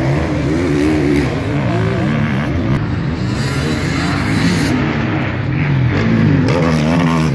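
Enduro motorcycle engines revving hard, their pitch rising and falling over and over as riders power through the dirt test track.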